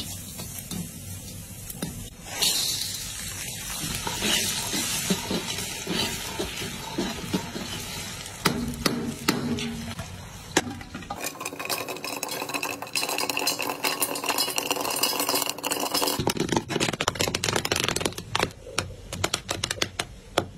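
Bitter melon and corn kernels sizzling and being stirred in a steel wok. In the second half, dense crackling clicks come as the kernels pop into popcorn.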